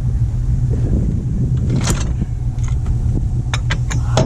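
Car engine running with a steady low drone. A few sharp knocks and rattles come about two seconds in and again near the end.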